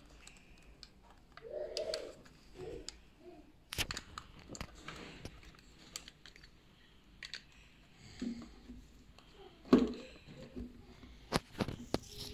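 A chrome metal stand clicking and knocking against the plastic case of an LED mirror alarm clock as it is fitted and adjusted by hand: scattered sharp clicks with light handling rustle between them, the loudest about two thirds of the way in and a quick run of clicks near the end.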